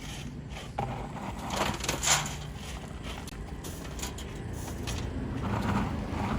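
Hand shovels scraping and crunching into sand and crushed stone, several strokes with the loudest about two seconds in, over a low steady hum.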